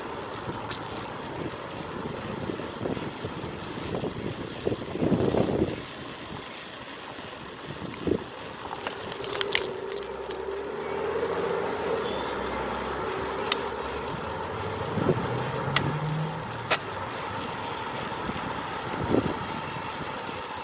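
Riding noise from a road bike on a city street: steady wind and road noise on the microphone, with scattered clicks and knocks and a louder rush about five seconds in. A motor vehicle's steady hum runs through the middle stretch.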